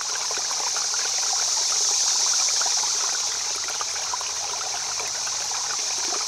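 Running water of a stream, a steady rushing hiss with fine trickling and splashing.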